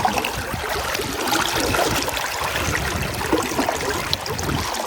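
Steady running and trickling of flowing river water.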